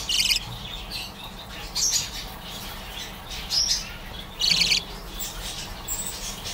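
Budgerigar chick calling: four short, high chirps about a second or two apart, the loudest about four and a half seconds in.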